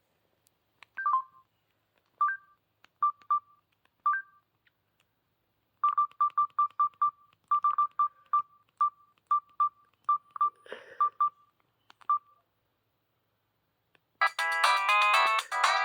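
Samsung cell phone giving short single-pitch key beeps as its buttons are pressed, a few at first and then about three a second. Near the end a polyphonic ringtone starts playing loudly.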